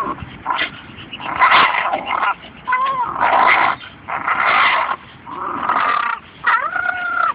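Staffordshire bull terriers growling in a string of short, rough bursts. Two whining yelps rise and fall in pitch, about three seconds in and again near the end.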